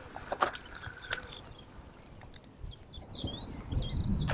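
A bird singing, with repeated high, looping whistled notes in the second half. There are a few faint clicks early on, and a low rumble builds near the end.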